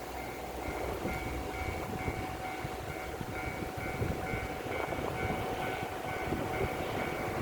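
Japanese railway level-crossing alarm ringing steadily at about two dings a second while a train runs past on the rails.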